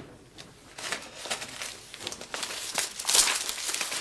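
Sheets of paper rustling and crinkling as they are handled, louder about three seconds in.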